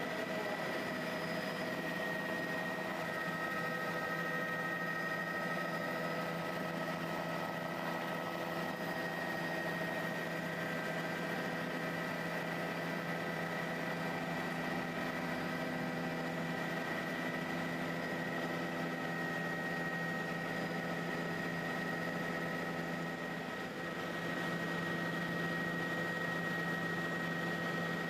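Tour helicopter's engine and rotors running steadily as it lifts off and climbs: a constant drone with a steady high whine.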